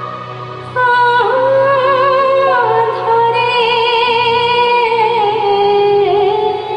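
A woman singing a slow, sustained melody with vibrato over keyboard accompaniment, a new phrase entering about a second in.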